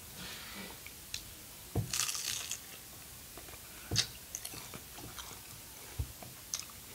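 Bites into a fried egg roll and chewing, the crisp wrapper crunching in a few sharp bursts, the loudest about two and four seconds in.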